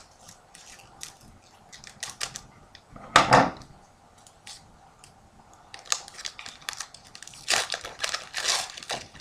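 Small clicking snips of scissors cutting open a foil trading-card pack, then a louder knock about three seconds in as the scissors are set down on the wooden table. From about six seconds the foil wrapper crinkles as the cards are pulled out.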